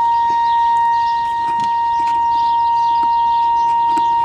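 Nordmende Caruso tube radio playing a steady 1 kHz test tone, the signal generator's FM modulation coming through its audio stage, with faint crackle and hiss above it.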